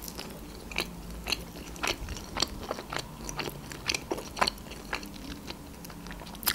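A person chewing a bite of homemade pizza into a close microphone: short moist crunchy clicks of the crust, about two a second.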